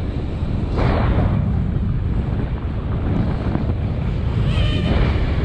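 Strong wind buffeting the microphone: a loud, steady low rumble, with brief stronger gusts about a second in and near the end.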